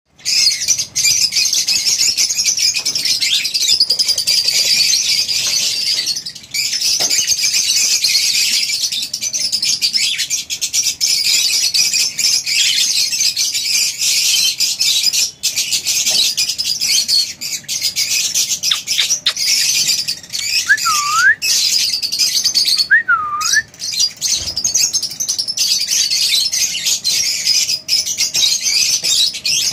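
A flock of lovebirds in an aviary chattering and chirping without a break, a dense high twittering. About two-thirds of the way in, two separate whistles stand out, each dipping and rising again.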